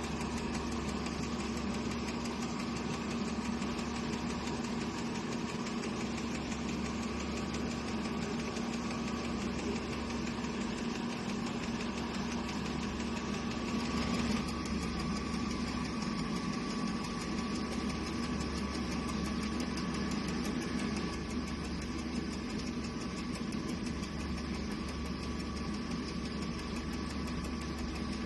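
Steady mechanical hum of a running machine, with a constant low drone and a steady mid-pitched tone.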